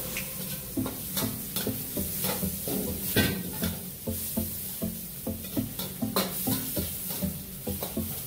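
Metal ladle scraping and knocking against a wok, about two or three strokes a second, as shrimp and squid are stir-fried over a high gas flame. A steady sizzle of frying runs underneath.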